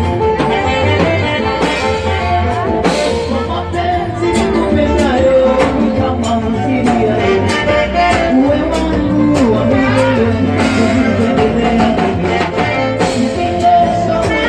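Live band playing upbeat dance music through a PA system: saxophones carry the melody over a heavy, steady bass line and a drum kit keeping a regular beat.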